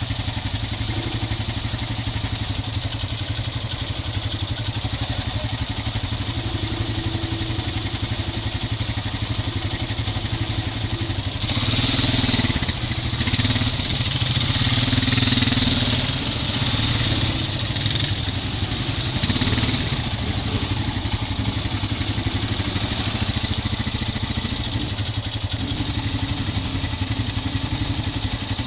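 ATV engine running steadily at low speed, with a single-cylinder Honda Rancher 420 in the mix. It grows louder for several seconds past the middle, then settles back.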